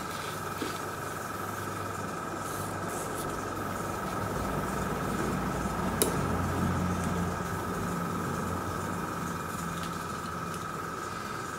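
Small airbrush compressor running steadily: a low hum with a constant whine above it, a little louder in the middle. There is a single sharp click about six seconds in.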